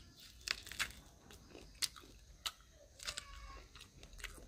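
Faint chewing and crunching of food, with a handful of short sharp crunches spread through.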